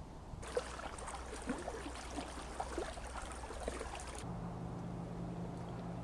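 Lake water lapping and gurgling with many small irregular splashes for about four seconds, then cutting off abruptly; a steady low hum follows.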